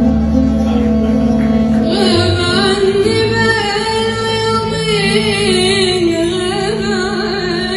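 Live Gulf Arabic song: a male voice sings long, ornamented held notes over oud, violin and keyboard, entering about two seconds in after a short instrumental passage.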